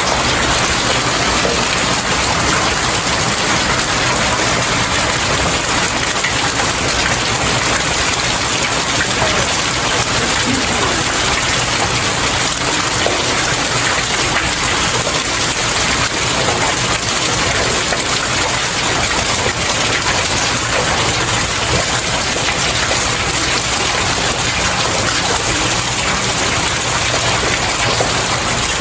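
Steady rain falling on stairs, a dense even patter of drops with no let-up.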